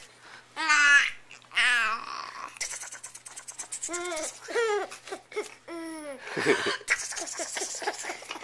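Infant laughing and squealing: two high-pitched squeals about one and two seconds in, then a run of short laughs from about four to six seconds.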